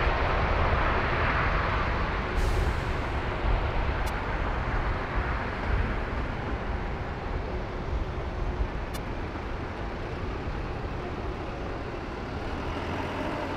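Airliner engine noise fading as the aircraft moves away, the hiss dying down over the first few seconds and leaving a low rumble.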